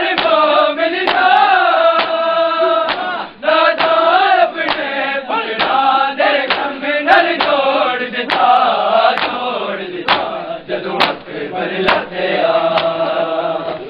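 Group of men chanting a Punjabi noha in unison, with sharp rhythmic slaps about twice a second, the chest-beating of matam keeping time with the chant.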